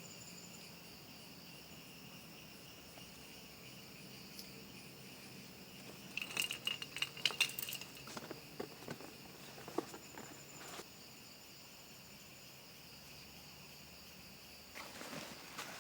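Insects, likely crickets, chirring steadily. A flurry of sharp clicks and rustling, like something being handled or walked through, comes in the middle and starts again near the end.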